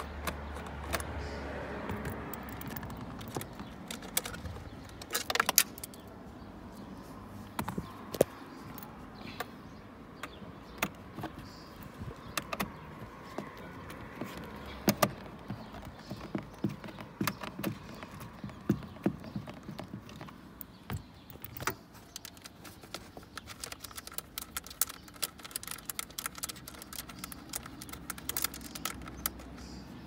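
Irregular metallic clicks, taps and scrapes of a nut driver turning a bolt in a car's dashboard frame.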